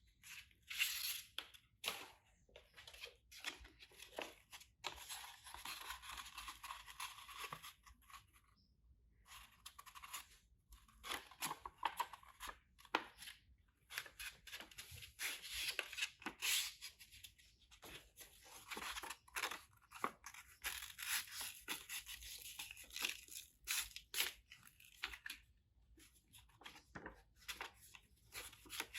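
Rough scraping and rubbing noise from hand work on an aluminium motorcycle exhaust, in uneven stretches with short gaps and many small clicks and knocks.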